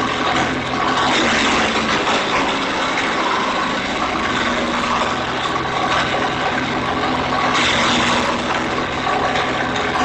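Engine-driven garden wood chipper running steadily while conifer branches are fed in, the engine hum overlaid by the crackle and snapping of the branches being shredded, which grows heavier about a second in and again near the end.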